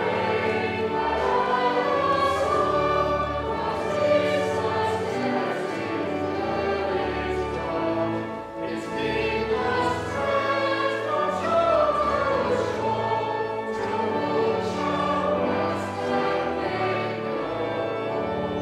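A church congregation and choir singing a hymn together with pipe organ accompaniment, the organ holding steady low notes beneath the voices, with a short break about eight and a half seconds in.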